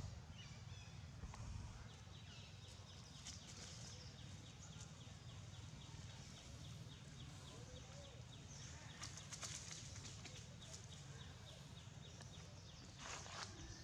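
Faint outdoor ambience: a steady low rumble, with a rapid run of high, even ticking chirps, about six a second, lasting several seconds before it stops.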